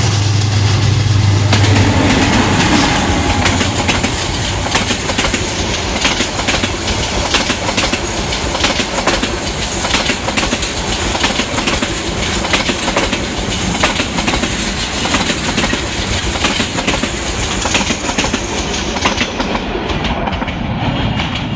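Bangladesh Railway intercity passenger train passing at speed close by, its coach wheels clattering over the rail joints in a dense run of clicks over a steady roar. A deep steady drone sounds in the first two seconds.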